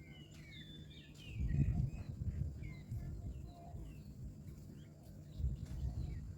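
Birds chirping in short, quickly bending notes throughout. Two bouts of low rumbling noise, starting about a second in and again near the end, are louder than the chirps.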